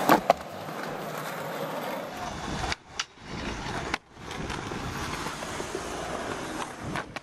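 Skateboard on a concrete sidewalk: two sharp board clacks right at the start, then the steady noise of rolling wheels and passing road traffic, broken by several abrupt cuts.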